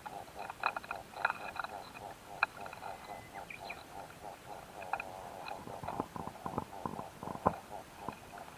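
Close-miked quail stink bugs (Aelia fieberi), a mating pair with a rival male, on a grass ear: a fast, even pulsing with scattered sharp clicks. A run of soft taps comes in the last few seconds, the loudest near the end.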